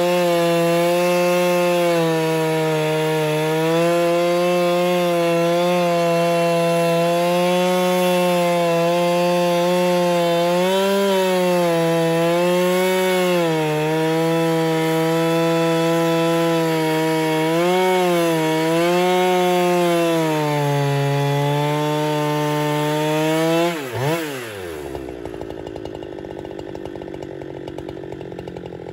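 Husqvarna 395XP two-stroke chainsaw on an Alaskan chainsaw mill running at full throttle while ripping a fir log lengthwise, its pitch wavering a little under the load of the cut. About 24 seconds in the throttle is released and the engine winds down to idle.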